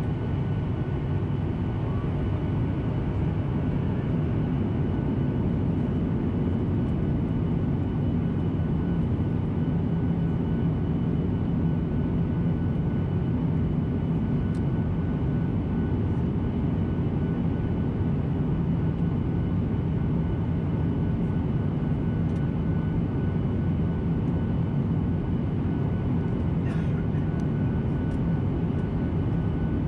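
A Boeing 737-800's CFM56 jet engines running steadily, heard inside the cabin as a constant deep rumble with a faint steady whine above it.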